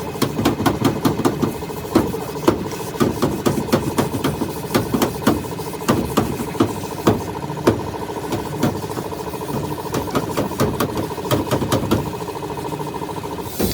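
A machine running with a steady hum, under many irregular sharp knocks, several a second.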